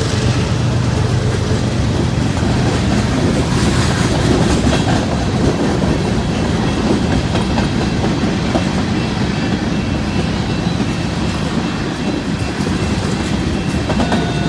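Cars of an empty Union Pacific coal train rolling past at speed, a steady loud rumble of steel wheels on rail with clattering over the joints. Faint high squeals of wheel on rail come and go, most plainly near the end.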